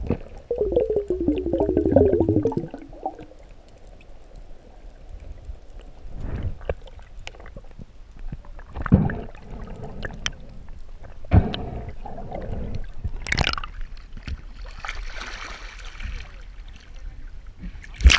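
Underwater sound during a spearfishing ascent: about two seconds of bubbling gurgles, then scattered dull knocks and a faint hiss of water. It ends with a sharp splash as the diver breaks the surface.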